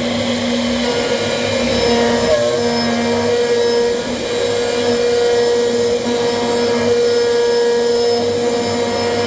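CNC machine running: a steady motor whine holding one pitch with several overtones over a constant mechanical hum.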